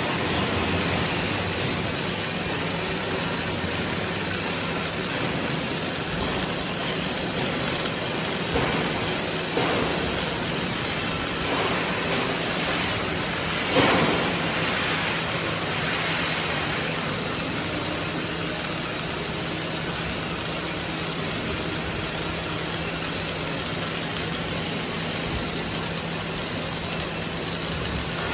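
Two robotic welding torches arc-welding heavy steel, giving a steady hiss and sizzle over a constant low hum, with a brief louder crackle about 14 seconds in.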